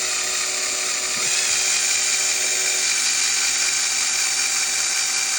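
Power drill running steadily, spinning an aluminum radio knob against a fiber polishing pad loaded with silver polish: an even motor whine with the hiss of the pad scrubbing the metal, growing stronger about a second in.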